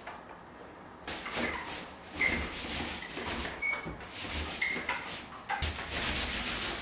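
Paint roller on an extension pole being rolled over a wall: repeated swishing strokes of the wet roller, with several short high squeaks.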